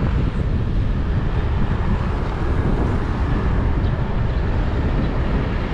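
Wind buffeting the microphone while riding an e-bike, heard as a steady low rumble mixed with road noise.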